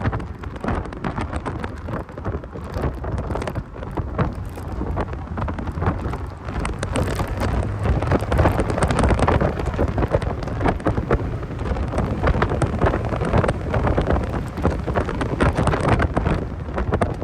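Driving noise from a 1990 Mazda Miata on the move: wind buffeting the microphone over a low road and engine rumble, with crackly, distorted sound quality. Its loudness swells and dips throughout.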